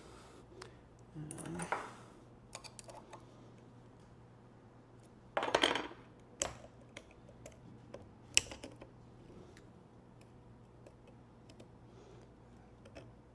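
Snapring pliers working the axle snap ring of a GMAC hub motor: scattered small metallic clicks and scrapes, with a louder scraping rattle about five and a half seconds in and a sharp click a few seconds later.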